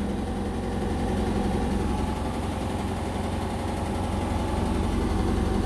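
Indesit BWE101683 washing machine spinning fast in its final spin with a slightly unbalanced load: a loud, steady row that sounds like a train, growing slightly louder as the drum speeds up.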